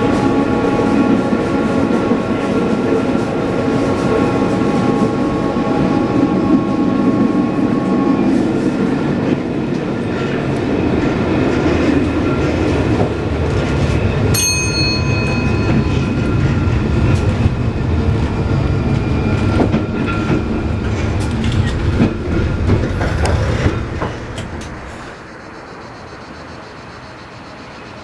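Vintage electric tramcar of the Trieste–Opicina tramway running, heard from inside the passenger car: a steady rumble of wheels on rail with several steady humming tones through the first eight seconds and a brief high tone about fourteen seconds in. Near the end the ride noise drops away to a much quieter background.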